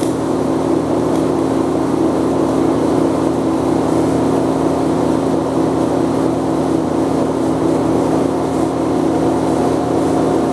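Steady hum and drone of TIG welding equipment. At the start the arc on the silicon bronze filler hisses with a few faint pops, which the welder ties to the zinc in the brass wanting to vaporise.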